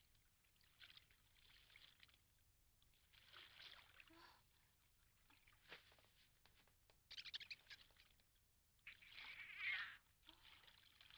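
Near silence, with faint soft hissing now and then, a little stronger about seven seconds in and again about nine seconds in.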